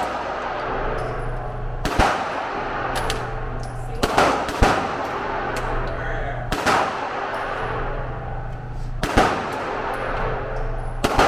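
Pistol shots, most likely from a Glock 23 firing .40 S&W, fired one at a time every couple of seconds with a pair close together near the middle. Each shot has a short echoing tail, over a steady background hum.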